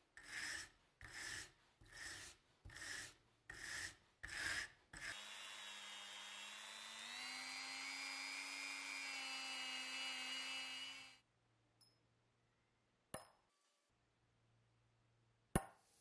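A corroded Zippo lighter part clamped in a vise is scrubbed with a hand wire brush, about seven strokes in five seconds. A rotary tool with a small abrasive wheel then runs for about six seconds on the Zippo's brass insert, its pitch rising a little partway through. Two sharp clicks come near the end.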